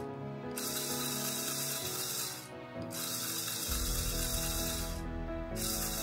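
Plastic LEGO gears skipping teeth as a Powered Up large motor drives a locomotive model's wheels, making a ratcheting clatter in three spells of about two seconds with short breaks between. The gear mesh is too loose, so the teeth slip under load.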